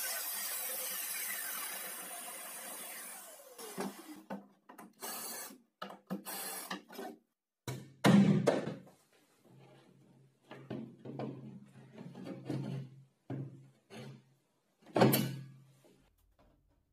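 Circular saw motor spinning down after being switched off, its whine falling in pitch over the first three seconds or so. Then a series of irregular knocks, bumps and scrapes of wooden panels being handled, the loudest about eight seconds in and about fifteen seconds in.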